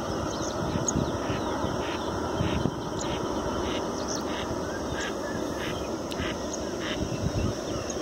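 Ducks quacking in a regular series, about three calls every two seconds, over a steady low background noise.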